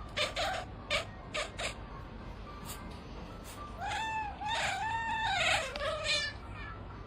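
Domestic cat yowling: a run of drawn-out calls that rise and fall in pitch, starting about four seconds in, after a few short sounds in the first two seconds.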